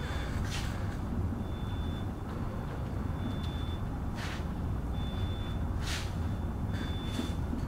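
Steady low hum with a faint high-pitched beep repeating about every second and a half. A few short scratchy strokes of a marker on a whiteboard come in the second half.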